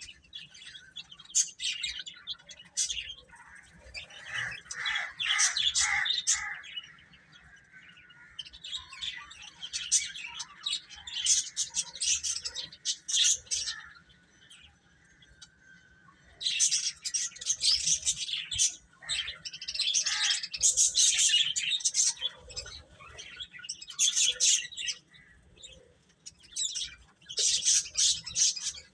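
Baby chicks peeping: rapid, high-pitched chirps in clusters, louder and busier in the second half.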